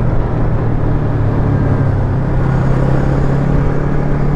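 Yamaha MT-25's 250 cc parallel-twin engine running at a steady pace while riding, with a low road and wind rumble underneath.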